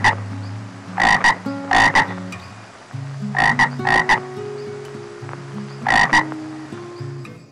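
A frog croaking in short calls, mostly in pairs, about every one to two seconds, over background music of sustained low notes.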